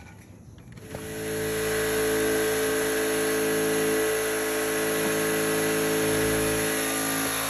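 A machine motor starts about a second in and then runs steadily at one unchanging pitch, with a hiss over it.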